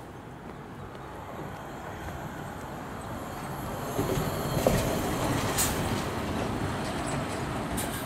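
A heavy road vehicle passes close by, its noise swelling about four seconds in and then slowly fading.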